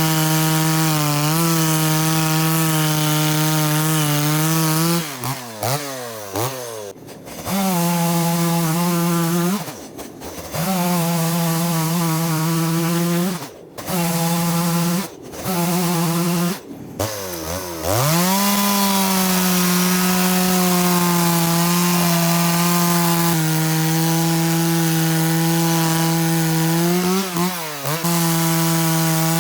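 Chainsaw running at high speed while cutting firewood logs. Several times its pitch falls away as the throttle is released and then climbs back up, with a few brief sharp breaks in the sound.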